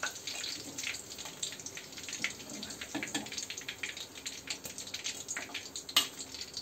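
Hot frying oil in a steel kadai crackling and sizzling in many fine pops as fried chicken pakoras are lifted out with a perforated steel slotted spoon. About six seconds in comes a single sharp metal clink, the spoon against the steel plate.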